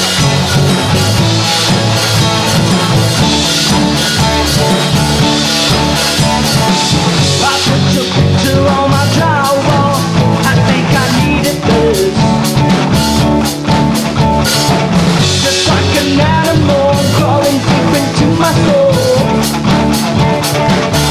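Rock band playing live: a drum kit with cymbals, electric bass and electric guitars, with no vocals.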